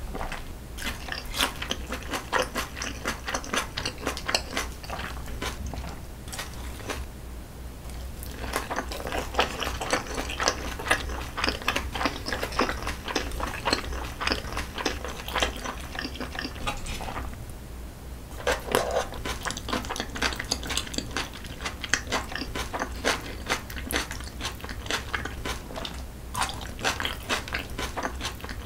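Close-miked eating sounds: chewing and biting mouthfuls of spicy jjajangmyeon with squid and vegetables, with a metal spoon scraping and tapping the ceramic bowl. The sound is a dense run of small irregular clicks and crackles.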